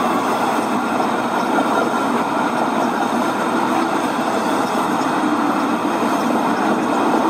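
HO-scale model freight train rolling past on its track across a trestle: a steady rumble of wheels on rail.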